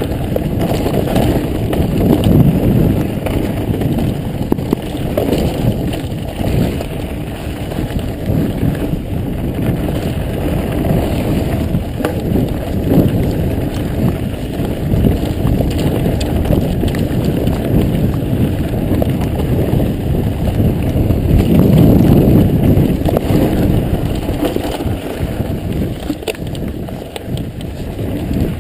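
Mountain bike riding a dirt singletrack, heard from a camera on the rider: a constant low rumble of tyres on dirt and wind on the microphone, with many small clicks and rattles from the bike over bumps. The rumble swells louder twice, near the start and again about three quarters of the way through.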